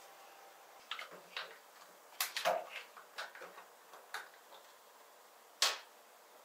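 A scattered series of light clicks and taps from small containers being handled and set down on a stainless-steel kitchen counter, with one sharper click about five and a half seconds in.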